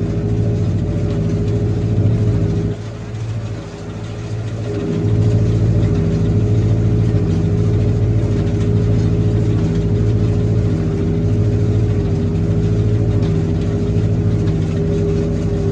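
Tractor engine running at a steady speed. It drops in level a few seconds in, then comes back just as loud.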